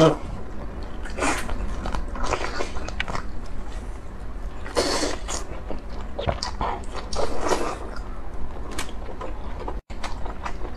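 Close-miked biting and chewing of chewy spicy squid: irregular mouth noises as the squid flesh is bitten, torn off and chewed, over a steady low hum.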